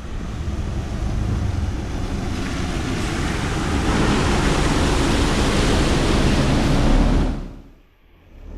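Loud rushing of floodwater, building over a few seconds and then cutting off abruptly near the end.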